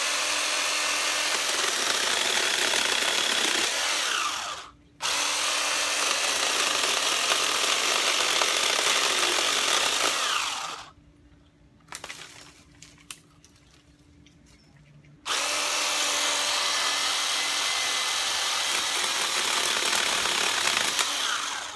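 Kimo 20V cordless electric pole chainsaw with an 8-inch bar, running and cutting into overhead tree branches in three long runs. A short pause follows the first run, and a quieter gap of about five seconds with a few small knocks follows the second.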